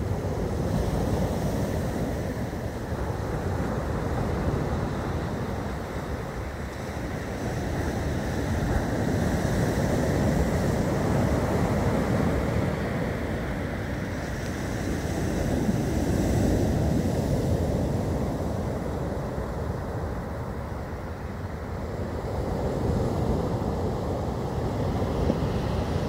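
Heavy storm surf breaking on a beach: a continuous rush that swells and eases every several seconds as waves crash in, with wind buffeting the microphone.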